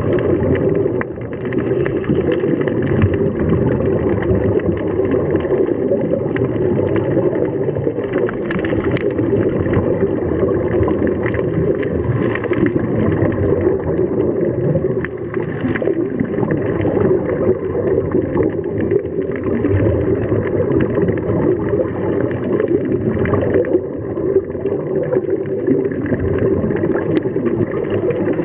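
Steady, muffled underwater noise picked up by a submerged camera, with a scuba diver's regulator bubbles.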